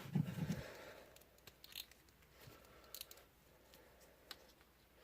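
Faint plastic clicks and light handling noise from a plastic action figure as its shield is clipped on, after a brief low muffled sound at the very start.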